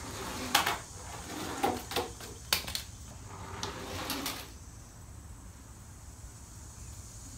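Clacks and short rattles of die-cast toy monster trucks against plastic toy track and shelving, about half a dozen knocks in the first four seconds or so, then only a faint steady hiss.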